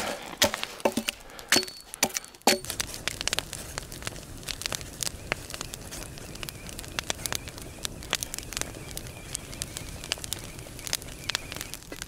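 Campfire of split logs crackling and popping, with a steady low rumble from a kettle boiling hard over the flames. A few sharp knocks come in the first couple of seconds.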